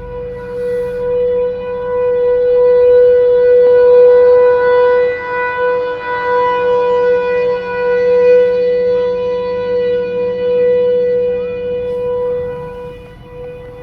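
Tornado warning siren sounding one steady, loud tone whose volume swells and ebbs in slow waves, then drops off near the end. It is the signal for people to go and seek shelter.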